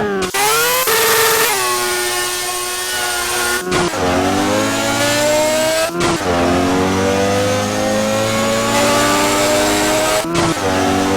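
Honda B18C 1.8-litre DOHC VTEC four-cylinder engine under hard acceleration. The pitch climbs, breaks and drops about 4, 6 and 10 seconds in, then climbs again more slowly each time, as in upshifts through the gears.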